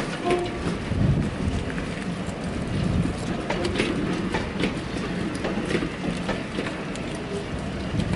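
Vintage teak passenger coaches rolling slowly past on the rails: a steady rumble of wheels on track with irregular clicks and knocks from the wheels and running gear, and a brief metallic squeal just after the start.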